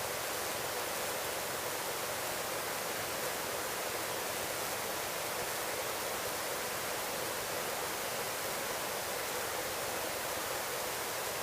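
Steady, even hiss of a helicopter's cabin noise in flight, as picked up through the headset intercom, with no separate rotor beat standing out.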